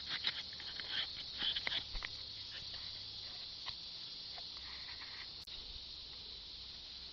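Light irregular clicks and taps for about the first two seconds, as a baking soda and water mixture is stirred and handled, then a single sharp tick about five and a half seconds in, all over a steady high hiss.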